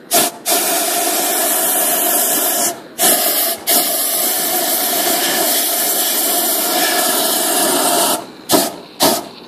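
Hose-fed gas torch hissing as it blows flame into an Audi A3 8L intake manifold to burn out carbon deposits. It is opened in long steady blasts with two brief cut-offs about three seconds in, then fired in three short blasts near the end.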